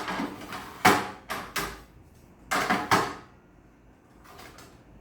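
Espresso machine drip tray being slid and set into place, with a series of hard knocks and clatters; the loudest comes about a second in, with another cluster around two and a half to three seconds.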